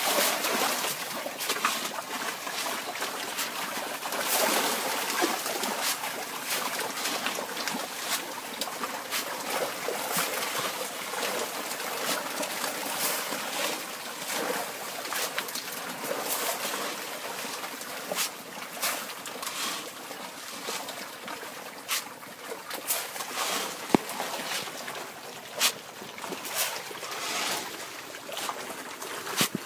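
Farmed catfish thrashing at the surface of a pond as they feed on pellets: continuous churning of water with many small sharp splashes, easing somewhat in the second half.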